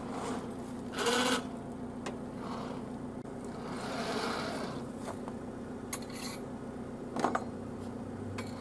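Ute's engine idling steadily, left running so its vibration keeps the bees inside the hives during loading, with a few knocks from the metal hive-lifting frame being handled.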